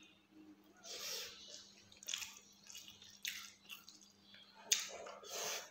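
Fingers mixing cooked rice with fish curry on a leaf plate, close to the microphone: a few soft, wet squishes about a second apart, with a sharper click near the end.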